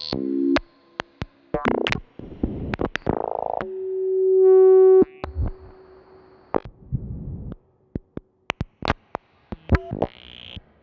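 Eurorack modular synthesizer: a Doepfer A-188-9 high speed VCO clocking an A-188-1 BBD delay, playing short plucked Karplus-Strong notes mixed with sharp glitchy clicks. Near the middle, one held tone swells up and cuts off suddenly.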